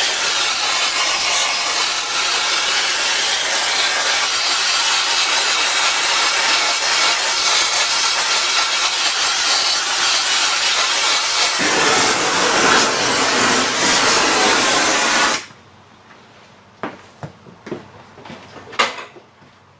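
Large oxy-fuel heating torch hissing steadily as its flame heats a cast multi-groove pulley to swell it off its shaft. The hiss gets fuller about twelve seconds in and cuts off suddenly about three seconds later as the torch is shut off, leaving a few light knocks.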